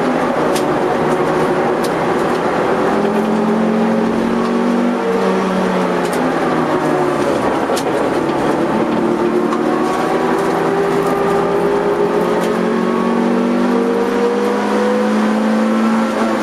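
Honda CRX EE8's 1.6 VTEC four-cylinder engine heard from inside the cabin at race pace. The engine note drops about five seconds in as the car slows for a corner, then climbs steadily for about ten seconds under full acceleration.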